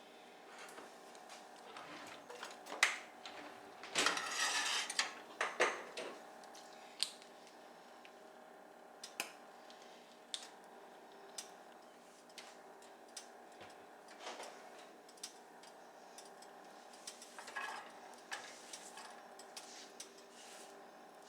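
Kitchen clatter of utensils and dishes: scattered clicks and knocks, with a louder stretch of clatter about four seconds in, over a faint steady hum.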